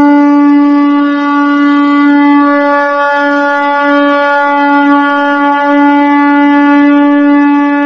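One long, loud blown note from a horn-like wind instrument, held at a steady pitch.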